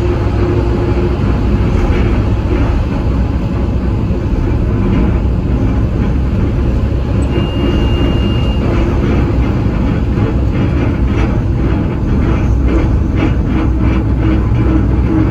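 Train running at speed, heard from inside the locomotive cab: a steady rumble with a low hum. A brief high tone comes about halfway through, and a quick run of clicks fills the last few seconds.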